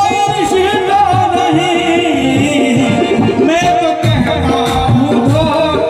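Ghazal music: an ornamented melody line wavers over a steady held drone note, with a drum beat underneath.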